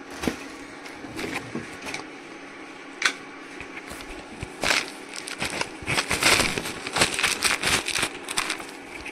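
Crackling and clicking from spices being handled while cooking: a few separate clicks early, then a dense run of crunchy crackles through the second half.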